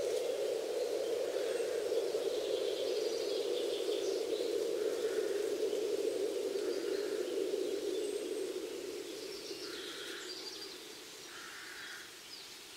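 Added ambient soundscape: a steady airy noise that fades away over the second half, with short chirps every second or two.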